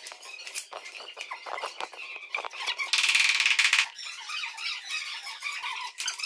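Rubber gym floor tiles being handled and pushed into place on the floor, with scattered clicks and scuffs and one loud squeak lasting just under a second, about three seconds in.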